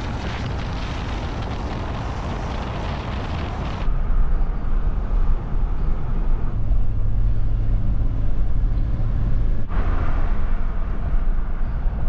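Road and wind noise of a moving car heard from inside the cabin: a steady low rumble with hiss. It changes abruptly at several cuts, about 4, 6.5 and 10 seconds in, and a steady low hum stands out in the middle stretch.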